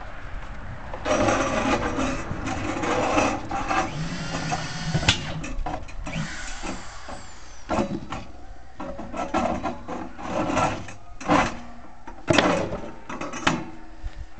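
Power saw on a wine-barrel cutting rig cutting through the barrel's wooden staves as the barrel is turned against the blade. The cutting noise is continuous at first, then comes and goes in surges and short bursts.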